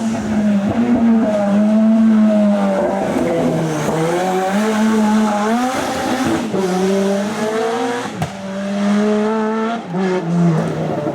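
Racing car engine at full throttle, its pitch repeatedly climbing and then dropping at each gear change, with a sharp crack a little after eight seconds.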